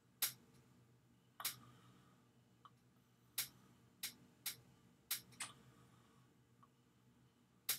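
Computer mouse clicking about eight times at irregular intervals, single sharp clicks, the sound of answers being selected on an online multiple-choice exam.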